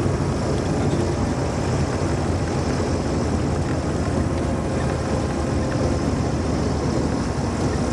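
Single-engine light aircraft's engine and propeller running steadily at low power as it rolls along the runway after landing, heard inside the cockpit with cabin noise.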